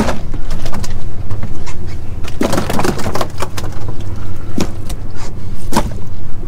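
Steady low rumble of a boat's outboard engine idling, with a few sharp knocks and slaps as black sea bass are handled at a plastic cooler on the deck.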